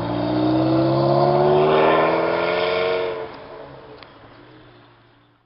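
Sports car engine accelerating hard, its pitch rising steadily for about three seconds, then falling away suddenly and fading out.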